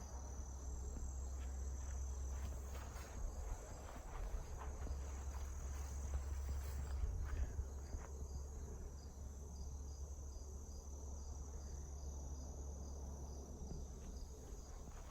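Insects trilling steadily in a high thin tone, with a regular pulsing chirp through the second half. Under it is a low rumble on the microphone and a few short snaps and rustles.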